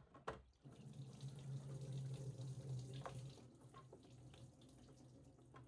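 Engine coolant running out of the just-disconnected expansion-tank-to-heater-core hose and splashing into a drain pan, a steady trickling stream that starts about half a second in after a click and eases off somewhat in the second half.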